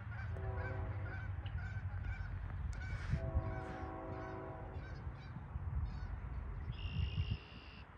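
Nathan K5HL five-chime air horn on CN's GE GEVO locomotive 3292, sounding two blasts: one of about a second, then a slightly longer one, over a low rumble.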